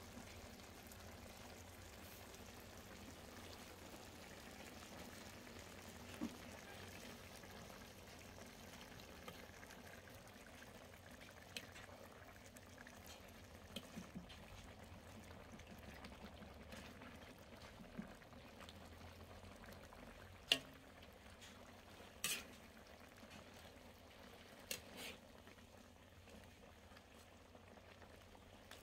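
Jackfruit in coconut milk simmering faintly in a metal wok, a low steady sound, with a few sharp clinks of a metal spoon against the wok scattered through it; the loudest clink comes about two-thirds of the way in.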